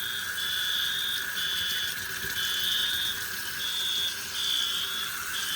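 Water running steadily from a kitchen tap into a sink. Fire alarm horns sound in pulses in the background from another room.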